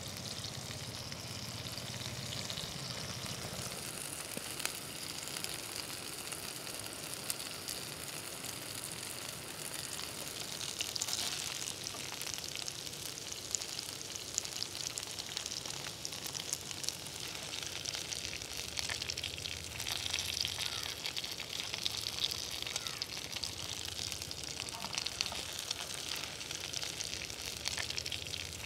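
Breaded chicken pieces sizzling steadily as they shallow-fry in coconut oil in a nonstick frying pan, with scattered crackles.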